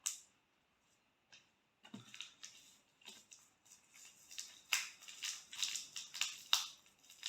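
Paper crackling and rustling as a folded instruction manual is handled, starting with a single sharp click; the crackles start about two seconds in and grow busier and louder toward the end.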